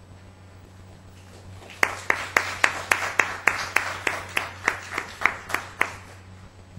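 Audience applauding, with one set of loud, evenly spaced claps about three a second standing out over the general clapping. It starts about two seconds in and dies away some four seconds later.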